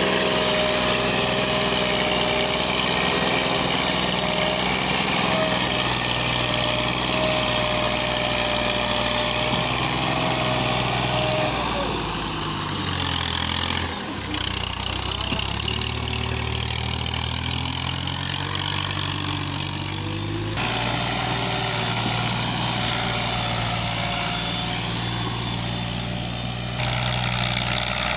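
Massey Ferguson 240 tractor's three-cylinder diesel engine running under heavy load as it pulls a fully loaded soil trolley. Its note shifts about twelve seconds in, dips briefly a couple of seconds later, and shifts again around twenty seconds in.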